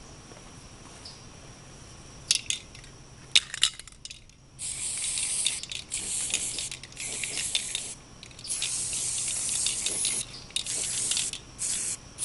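An aerosol spray-paint can hissing in repeated bursts of one to two seconds with short breaks, as a shot target is painted over white. A few sharp clicks come first.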